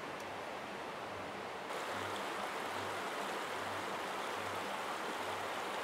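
Steady rush of running water, an even hiss without breaks, a little louder from about two seconds in.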